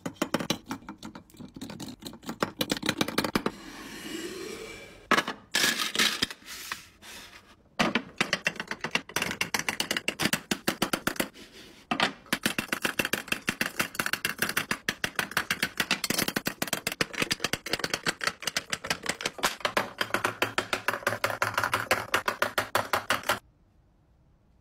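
Rapid plastic clicking and clatter of makeup pencils and lipsticks being set into clear acrylic organizers, several sharp taps a second, cutting off abruptly about a second before the end.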